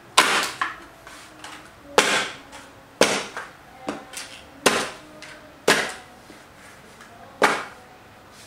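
Clear plastic container cracking and crunching under the sole of a hard shoe, stepped on again and again. About six sharp cracks, roughly a second or so apart, each trailing off in a short crackle, with smaller crackles between.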